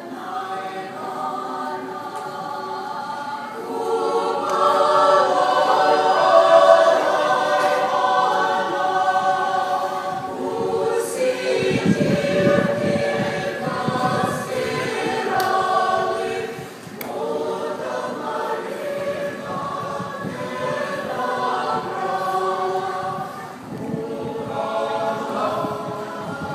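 Choir of men and women singing a Ukrainian folk song together, with a low rumble underneath partway through.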